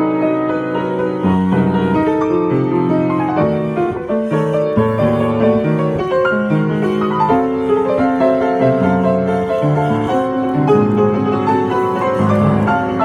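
Solo piano playing a continuous passage of many held and overlapping notes, with low notes underneath and a melody above.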